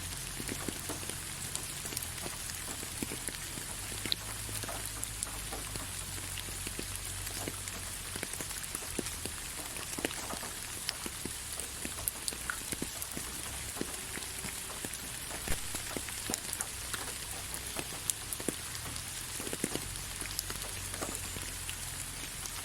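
Steady rain falling, a constant hiss with many irregular sharp drop impacts scattered through it.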